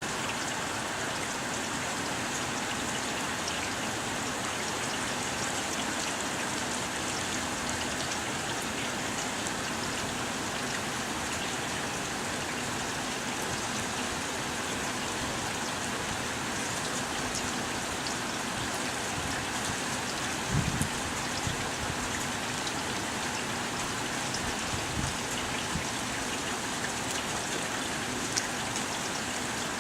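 Steady heavy rain falling and pattering on surfaces, an even hiss throughout. A few brief low knocks come about two-thirds of the way through and once near the end.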